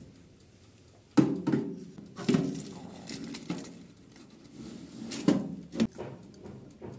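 Metal baking tray knocking and scraping against the toaster oven's wire rack and rails as it is slid in: a series of sharp clacks and knocks, the hardest about a second in and others near the end.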